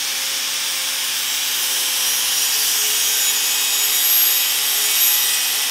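Electric angle grinder with its disc held against the rim of a carbon steel skillet, grinding a bevel on the edge. A steady hiss of abrasive on steel runs over the motor's even whine.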